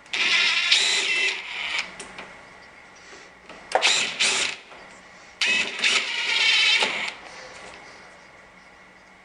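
Handheld power drill running in three short bursts, the second the shortest, its motor whirring with a wavering pitch.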